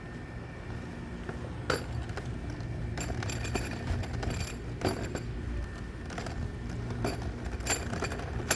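A series of light metallic clinks and knocks, about six spread over several seconds, over a low steady rumble.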